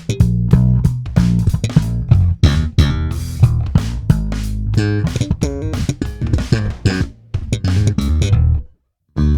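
Warwick Corvette $$ NT bubinga neck-through five-string electric bass played in a busy run of plucked notes with sharp attacks. The playing stops for about half a second near the end, then starts again.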